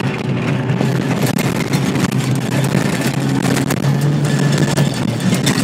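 Jeep engine running under load while driving over rough ground, heard from inside the cab, with scattered knocks and rattles as the vehicle jolts.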